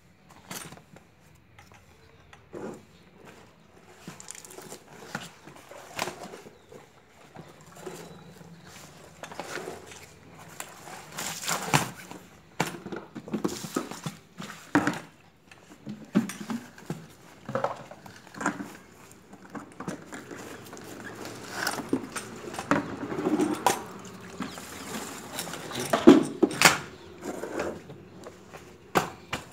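Folding baby playpen being unfolded and set up: irregular clicks and clacks from its frame and plastic corner joints, with rustling of its fabric and mesh sides.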